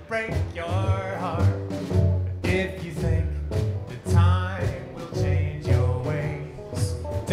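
Live acoustic band playing an easy swing-feel tune: strummed acoustic guitar, upright bass and a snare drum keeping a steady beat, with a small stringed instrument playing the melody line.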